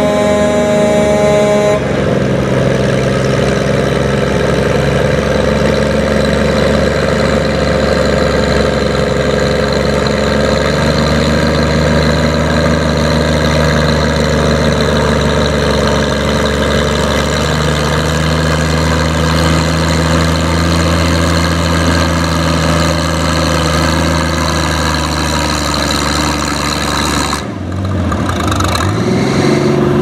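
Oliver farm tractor's engine working hard under load while dragging a pulling sled, a steady loud drone whose pitch drops a little about two seconds in and shifts a few times after. Near the end it cuts back abruptly, then picks up again.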